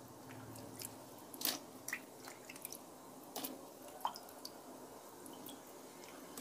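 Pot of vegetable soup boiling in an aluminium wok: faint bubbling, with a few sharp pops and clicks.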